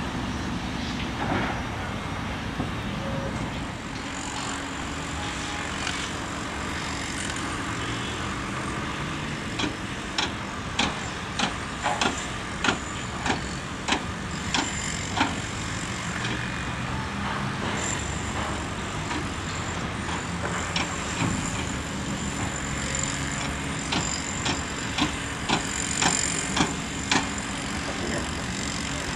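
Heavy construction machinery running steadily with a low diesel engine rumble. Two runs of sharp metallic knocks, a little under two a second, come in the middle and again near the end.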